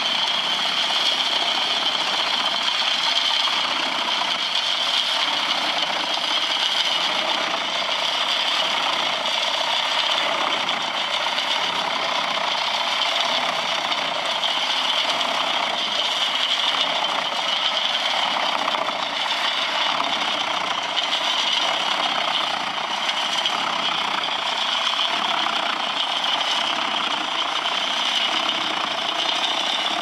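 Eschlböck Biber 85 wood chipper running steadily, powered by a Valtra S 323 tractor, as logs and branchwood are fed into its toothed feed rollers and chipped. It makes a loud, even machine noise with a steady high whine running through it.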